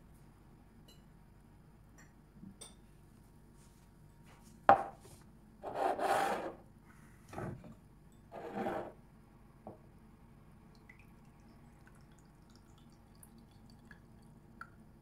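Hard plastic parts of an electric citrus juicer and a drinking glass being handled: a sharp knock about five seconds in, then three short rubbing scrapes over the next few seconds.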